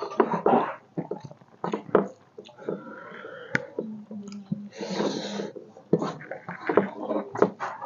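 Close-up mouth sounds of eating rice by hand: wet chewing and repeated lip smacks, with a longer noisy slurp about five seconds in.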